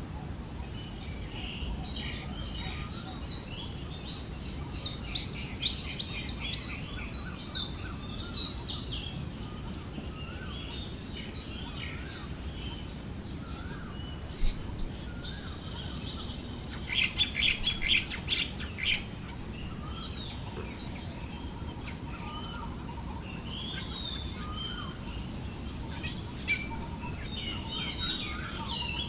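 Forest birds chirping and calling in scattered short notes, with a quick run of sharp notes about two-thirds of the way in. Behind them runs a steady high insect drone and a low rush of breeze.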